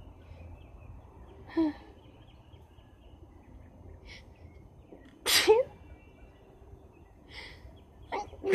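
A woman sneezing in a rapid bout: a short sneeze about a second and a half in, a loud full sneeze a little past the middle, then quick catching breaths building into another sneeze at the very end.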